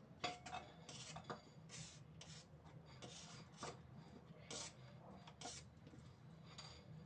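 Faint, irregular scraping and rubbing strokes, roughly one a second, from hands working at a kitchen counter during food preparation.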